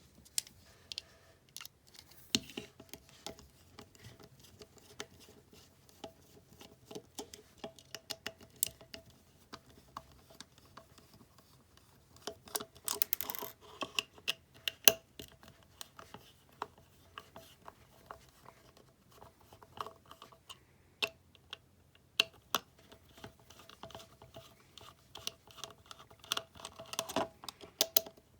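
Small hard plastic parts clicking, tapping and scraping, irregular with busier clusters, as a toy Ridewatch is handled and worked on by hand. A faint steady tone sits underneath.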